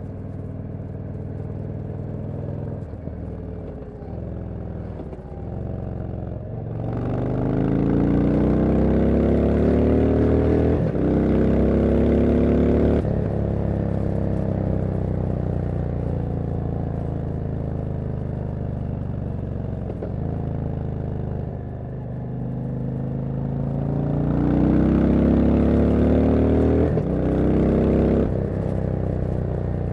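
Indian Super Chief V-twin exhaust under way. The motorcycle cruises, then accelerates hard about a quarter of the way in, with two quick upshifts breaking the rising pitch, and eases off. It pulls again near the end with one more shift.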